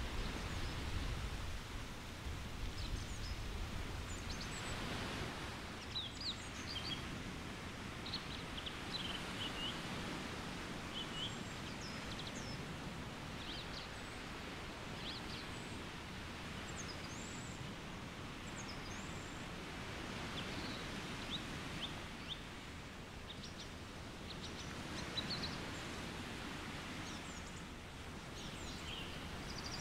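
Wind rushing through the forest canopy, swelling twice, with small songbirds giving many short high chirps throughout.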